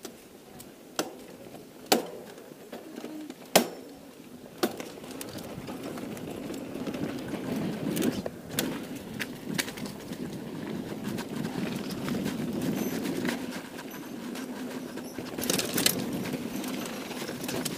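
Mountain bike rolling fast down a dry dirt trail: a steady rush of tyres on dirt and air, with sharp clicks and rattling knocks from the bike as it goes over bumps and rocks, the loudest in the first five seconds.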